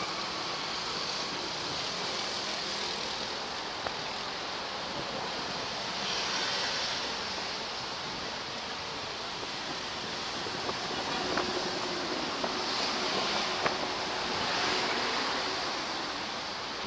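Steady street-traffic noise heard while walking beside a road. Passing vehicles swell louder about six seconds in and again between about thirteen and fifteen seconds, with a few faint clicks in between.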